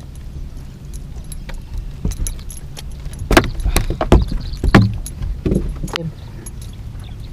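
A run of sharp clicks, rattles and knocks, loudest in the middle, over a steady low hum: handling noise on a bass boat's deck as a freshly landed bass is dealt with and the mounted camera is grabbed.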